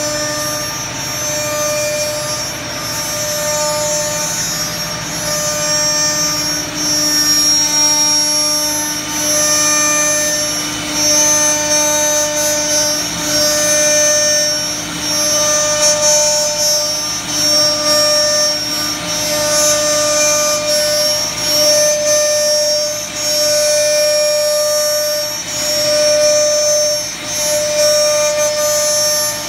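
Big CNC router's 6 kW air-cooled spindle running at a steady high pitch while its bit cuts a stepped stair-stringer outline into a wood-based sheet. The sound swells and dips every second or two.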